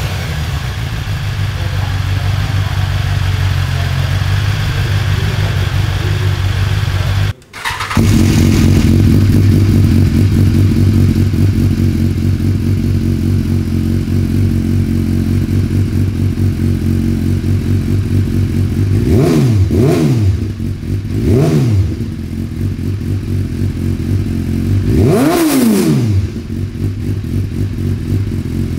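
BMW S1000RR inline-four idling on its stock exhaust; after a cut about seven seconds in, a second S1000RR fitted with an Akrapovič full exhaust system idles somewhat louder. Its revs are blipped several times, briefly rising and falling in pitch, with the longest blip near the end.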